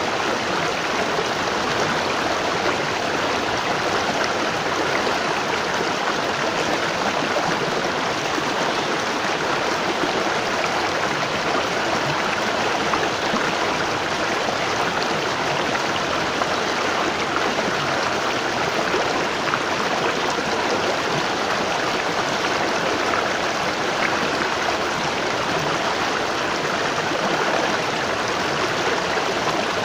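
Waterfall: falling water rushing and splashing in a steady, unbroken roar.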